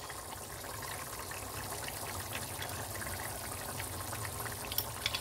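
Matar paneer gravy boiling in a pan: a steady bubbling simmer with scattered small pops.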